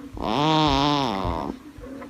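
A sleeping baby snoring: one loud, pitched snore with a wavering pitch on a single breath, about a second and a half long.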